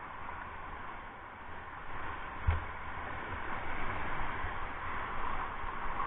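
Rushing white water of a mountain river's rapids around a moving inflatable raft, a steady hiss, with a single thump about two and a half seconds in.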